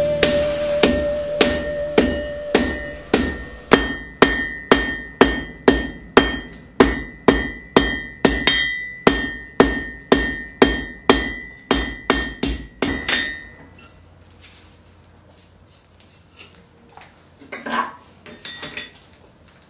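Blacksmith's hand hammer striking hot iron on an anvil while forging a nail, an even run of blows about two a second with the anvil ringing between them. The blows stop about two-thirds of the way through, and a few light metal clinks follow near the end.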